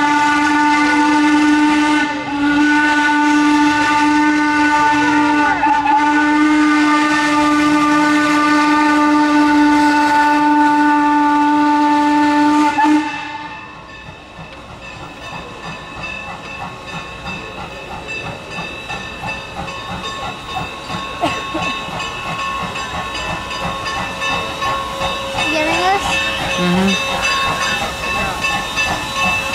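A steam locomotive whistle with several tones sounds loud and long, with a brief break about two seconds in, and stops about thirteen seconds in. After that, Norfolk & Western No. 475 comes slowly closer with a steady hiss and chuff of steam that grows louder.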